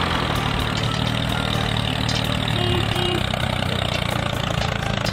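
Tractor engine sound running steadily at idle, with an even low hum and no changes in speed.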